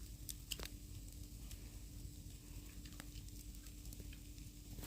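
Faint, scattered crackles and pops of food grilling over a campfire, over a steady low hum.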